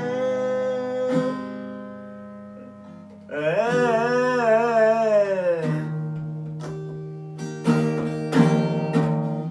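A man singing to a strummed acoustic guitar: a sung word at the start, a long wavering held note around the middle, then several sharp strummed chords near the end.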